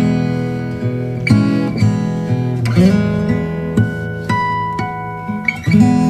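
Background music: acoustic guitar strumming chords, each strum left ringing, with single plucked notes between strums.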